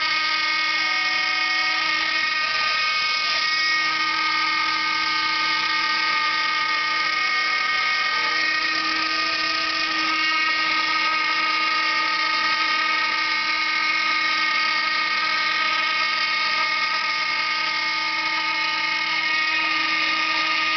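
CNC router's spindle motor whining steadily at high pitch as it cuts through a sheet of wood stock. The machine's axis drive motors hum underneath, shifting pitch every few seconds as the cut changes direction.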